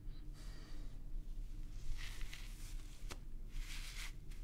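Faint rustling of a curly synthetic Santa wig being pulled on over the head, in soft hissy bursts, with one sharp click about three seconds in.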